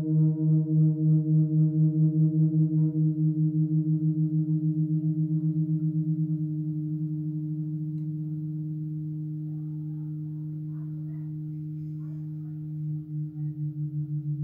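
Halldorophone feedback drone in which the D-string and a sympathetic string sound together and beat against each other as their pitches are bent, giving a pulsing low tone. The pulsing quickens and grows shallower, the tone steadies and softens, then slow deep pulses return near the end.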